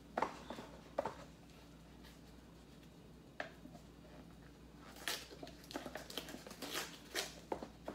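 Instant noodle cup being opened and its contents handled: scattered crinkles and clicks of packaging, a couple of sharp ones in the first second, then a denser run of rustling and tapping from about five seconds in.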